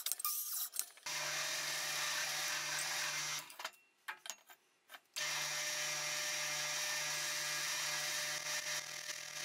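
A drill press running steadily as its bit bores into a block of wood. It drops out about three and a half seconds in and comes back with the same steady hum about two seconds later.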